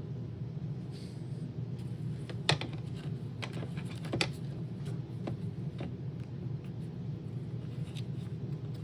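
Small plastic parts of a Roomba robot vacuum being handled during cleaning: a few scattered clicks and taps, the sharpest about two and a half and four seconds in, over a steady low hum.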